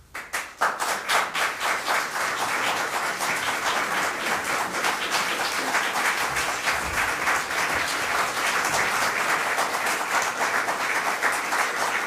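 Audience applause that breaks out suddenly after near silence and goes on steadily as many hands clapping.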